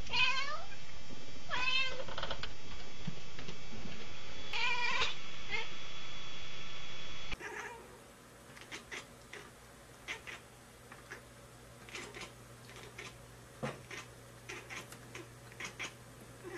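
Domestic cat meowing three times in the first five seconds, each meow bending in pitch. After a cut, a quieter stretch follows with scattered light clicks and taps.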